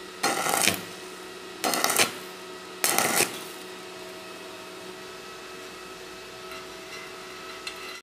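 Stick (arc) welding on thin 1 mm galvanized square steel tube: three short bursts of arc crackle, each about half a second long and about a second apart, with a steady hum and hiss between them. The arc is struck in short spurts, the stitch technique used to keep thin metal from burning through.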